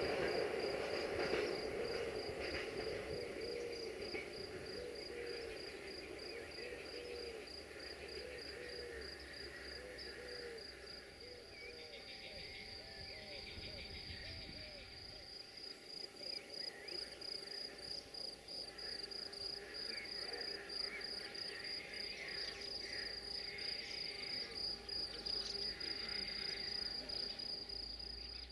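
Crickets chirping in a steady high pulse, about three chirps a second, with birds calling. The rumble of a departing freight train fades away over the first few seconds.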